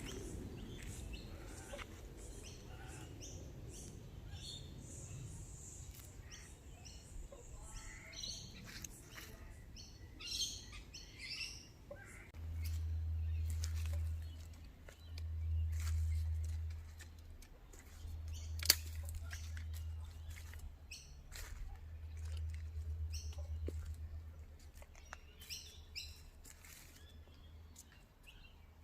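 Wild birds chirping and calling in short, scattered notes. From about a third of the way in, a low rumble comes and goes in blocks, and a single sharp click about two-thirds through is the loudest sound.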